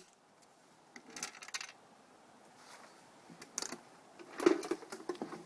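Handling noises from a metal ammunition can: scattered clinks, clicks and rustles in three short bursts, about a second in, at three and a half seconds and at four and a half seconds.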